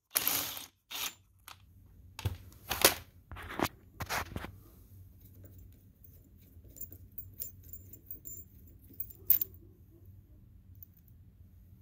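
Impact driver hammering at the 17 mm bolt that holds the starter cup on the crankshaft end of a Yamaha Terra Pro ATV engine, in about six short bursts over the first four seconds. After that comes faint clinking of the loosened steel bolt and cup, with one sharp click a little past nine seconds.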